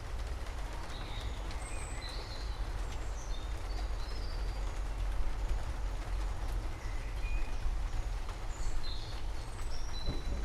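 Steady rain with a low rumble underneath, and songbirds chirping in short, scattered calls throughout.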